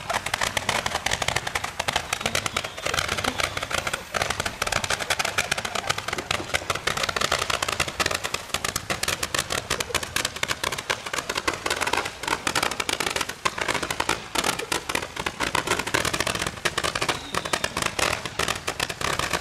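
A bundle of 36 Roman candles firing together, their shots popping in a fast, unbroken barrage like machine-gun fire.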